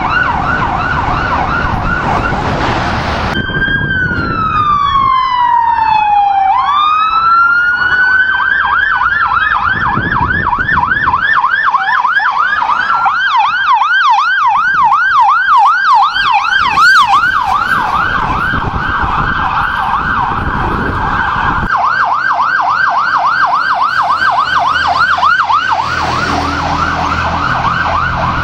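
Emergency vehicle sirens on responding fire apparatus. A rapid yelp is cut off about 3 seconds in. A slow wail then falls over several seconds, rises again and breaks into a warbling yelp that keeps going, getting faster near the end.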